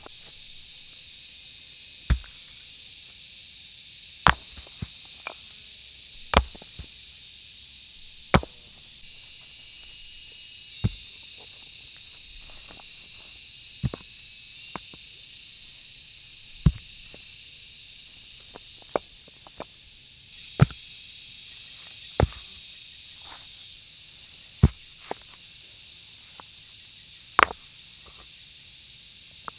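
Rough stones being set down and knocked against one another, about a dozen sharp clacks, one every couple of seconds, as they are laid into a ring. Under them runs a steady high hum of insects.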